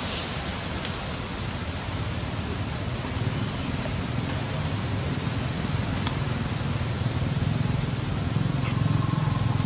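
Steady outdoor hiss, with a brief sharp sound right at the start and a low motor rumble growing louder over the last few seconds.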